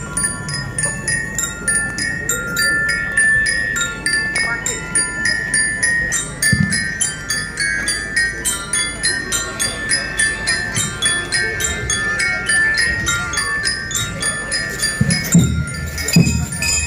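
Marching drum band playing. Bell lyres ring out a bright melody over a steady, evenly spaced drum beat.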